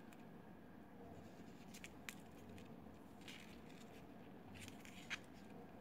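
Near silence with a few faint, scattered clicks from beads being handled as one is passed onto the thread.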